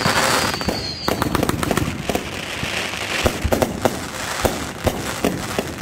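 Fireworks bursting overhead: a dense hissing rush during the first second, then a rapid, irregular run of sharp cracks and bangs from crackling stars.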